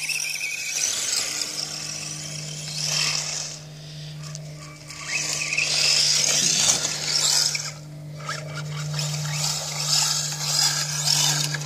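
Red Cat Piranha RC truck's motor whining and its slick tyres spinning as it is driven over icy snow and dirt, rising and falling in several surges of throttle.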